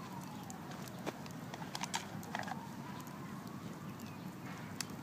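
Wood campfire crackling with irregular sharp pops, over a faint whistling tone that falls in pitch near the start and slowly rises again midway.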